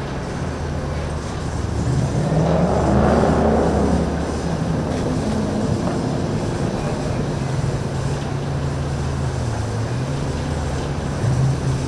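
Motorboat engines running with a steady low drone, swelling for a couple of seconds about two seconds in as a boat passes.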